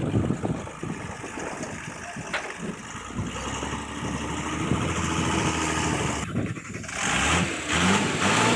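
Vehicle engine running: uneven low knocking at first, then a steady engine note that climbs slowly. About two-thirds of the way through it cuts to a louder engine revving, its pitch rising and falling.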